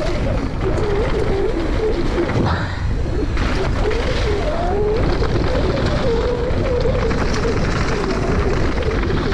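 A mountain bike being ridden fast down a downhill trail: heavy wind rush and tyre and trail noise, with a steady wavering hum that drifts up and down in pitch.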